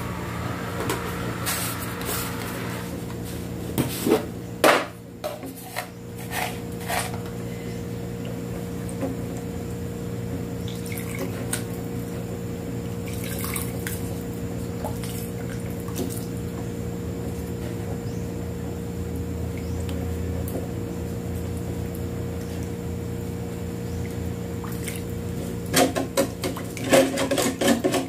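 A plastic ladle stirring soup in a stainless steel pot, the broth sloshing. The ladle knocks against the pot a few times several seconds in and in a quick cluster near the end, over a steady hum.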